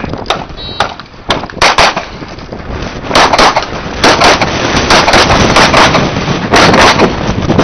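A short electronic shot-timer beep shortly after the start, then a pistol fired repeatedly in quick strings of loud shots, coming thicker and louder from about three seconds in.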